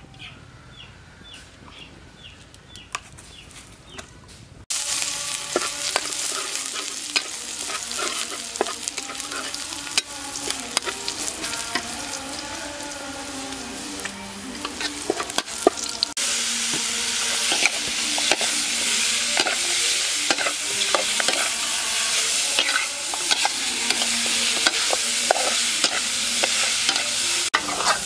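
Food dropped into hot oil in a wok, setting off a sudden loud sizzle about five seconds in, with a metal spatula scraping and clicking against the wok as the chopped aromatics and then the pork are stir-fried. The sizzle grows louder again about halfway through.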